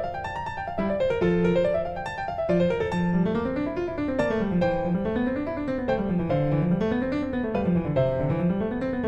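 Background piano music: rolling arpeggios that climb and fall over and over.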